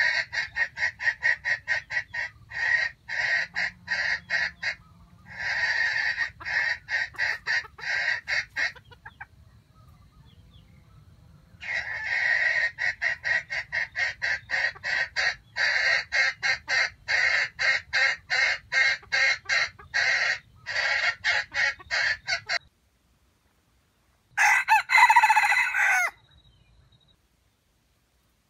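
Chicken clucking in long rapid runs of about five clucks a second, pausing once and then starting again, followed near the end by a single rooster crow of about two seconds, the loudest sound.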